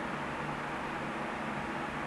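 Steady hiss with a faint low hum underneath, unchanging throughout.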